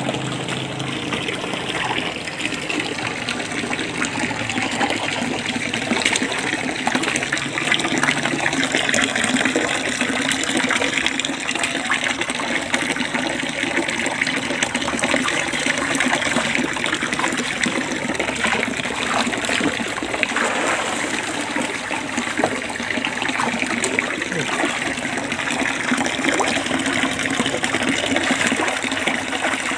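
Steady gush of water pouring and splashing into a shallow pool.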